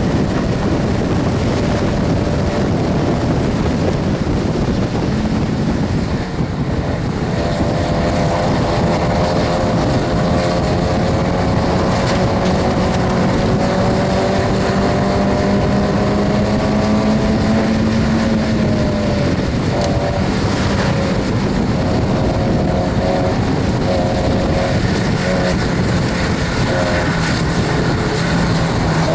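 Mazda MX-5 Miata's four-cylinder engine under racing load, heard from inside the cabin over road and wind noise. The engine note climbs slowly as the car accelerates, drops about two-thirds of the way through, then comes and goes in short breaks near the end.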